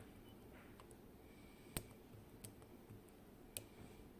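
A few faint, sharp metal clicks, three over a few seconds, from a lock pick and tension tool working the pins of a Kaba Gemini Plus lock during picking.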